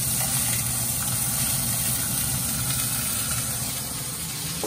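Beef searing in an enamelled cast-iron Dutch oven under a mesh splatter screen: a steady sizzling hiss over an even low hum.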